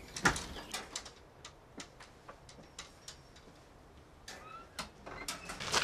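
A tent cabin's wooden door clicking open with one sharp knock, followed by a string of light knocks of footsteps and a bag on the cabin's wooden steps and floor. A short rising squeak comes a little past the middle.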